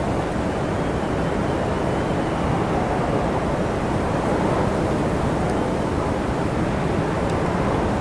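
Strong mountain wind blowing steadily: an even, dense rush of noise without pauses.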